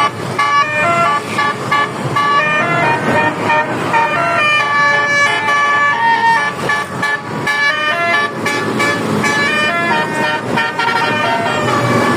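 Basuri telolet bus horn with top-mounted trumpets playing a fast melody of short notes that step up and down in pitch, several notes a second, without a break.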